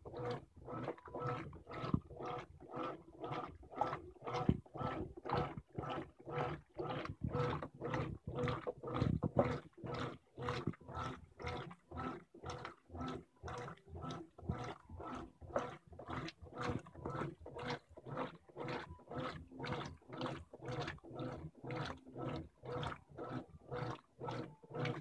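Brastemp BWG12 top-load washing machine agitating a load of jeans in sudsy water during the wash stage: the agitator reverses about twice a second, each stroke a short motor hum with water swishing, in a steady rhythm.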